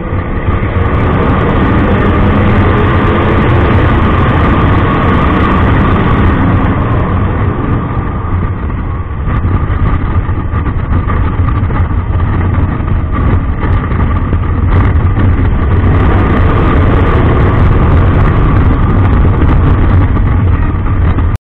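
Motorcycle engine running at highway cruising speed with wind and road noise, heard from a camera mounted on the bike; steady throughout and cutting off suddenly near the end.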